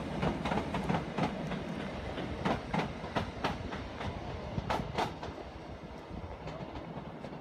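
Electric multiple-unit passenger train pulling away, its wheels clicking over rail joints in pairs over a steady rumble. The clicks fade after about five seconds as the train draws off.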